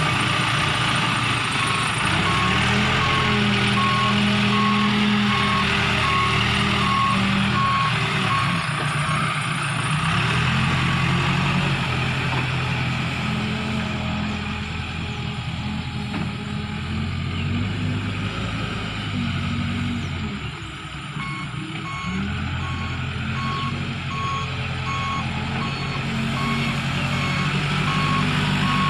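Case backhoe loader's diesel engine working, its revs rising and falling, with the reversing alarm beeping steadily for several seconds near the start and again through the second half.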